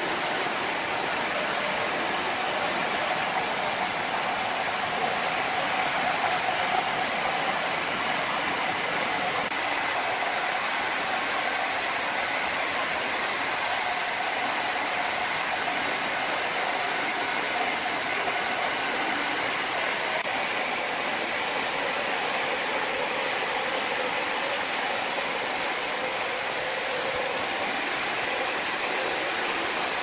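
Horizontal band sawmill running steadily, its band blade cutting lengthwise through a large log: an even rushing noise with faint steady whining tones.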